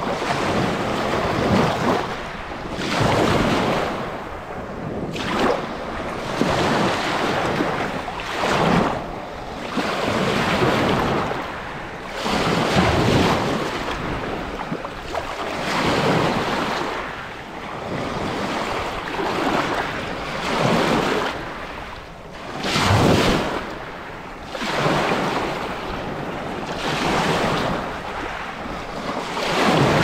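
Lake Erie waves breaking and washing onto the beach one after another, each surge swelling and falling every two to three seconds, with wind.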